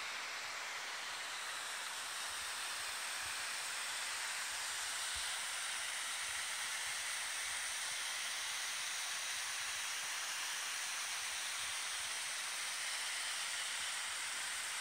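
Steady rushing hiss of hot spring water flowing out of the spring source and through its open channels and pipes.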